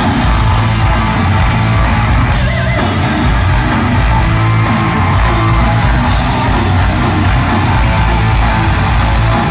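Heavy metal band playing live and loud: distorted electric guitar over bass and drums, with no vocals.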